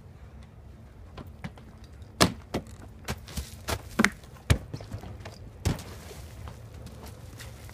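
Footsteps and a run of sharp thuds and knocks, about half a dozen over a few seconds, as a person vaults off a wooden playground deck and lands and rolls in wood chips.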